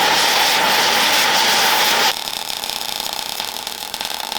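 A power tool working on the armour plate's fittings: a loud, steady hiss with a whine that drops suddenly to a quieter run about two seconds in.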